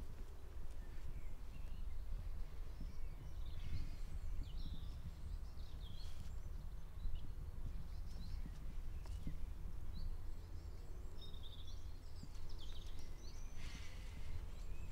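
Outdoor field ambience: birds chirping now and then over a steady low rumble.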